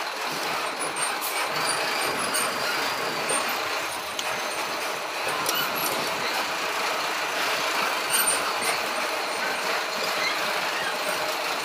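Steady running noise of a slow-moving truck on a rough street, heard from on board, with scattered light squeaks and clicks from the vehicle's body.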